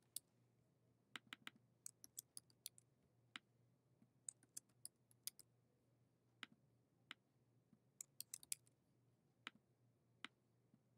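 Typing on a computer keyboard in short bursts of a few keystrokes, with single clicks between the bursts; quiet, with near silence between the clicks.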